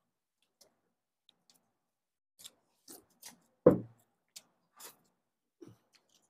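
People eating biryani with their hands: scattered small clicks and smacks of chewing and of fingers working rice on steel platters, with one loud thump about three and a half seconds in.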